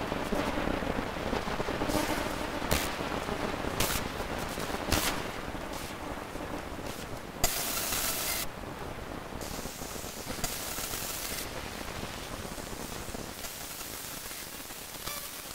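Harsh crackling noise with scattered sharp cracks, then blocks of hiss that switch on and off abruptly.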